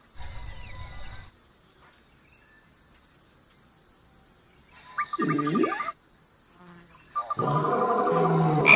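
Wild animal calls over a steady, high insect chirring. A short low rumble comes just after the start, a loud call falling in pitch about five seconds in, and a louder run of overlapping calls near the end.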